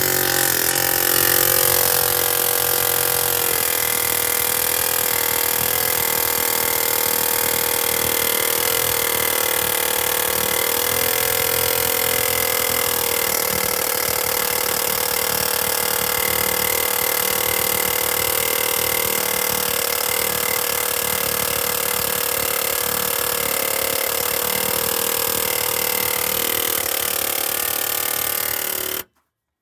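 Ingersoll Rand pneumatic air hammer running continuously, hammering a pickle-fork bit into a steering-linkage ball joint to split it apart. The hammering is loud and steady and cuts off suddenly near the end.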